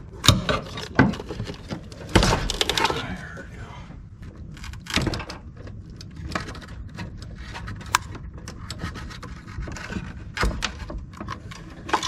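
Irregular knocks, clicks and scraping and rubbing of hands at work, with a longer stretch of scraping about two seconds in.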